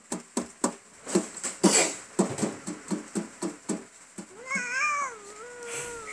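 Quick, even taps on the lid of a metal cookie tin played as a drum with a cat's paws, each tap ringing briefly; the tapping stops about four seconds in. Then the cat gives one long, wavering meow.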